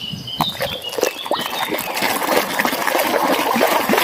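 Water running and splashing steadily over a plastic toy as it is rinsed clean of mud, with a few small knocks in the first second or so.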